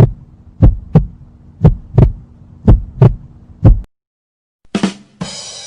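Heartbeat sound effect: paired low thumps, lub-dub, about once a second, stopping about four seconds in. Near the end a short knock is followed by a loud hissing whoosh.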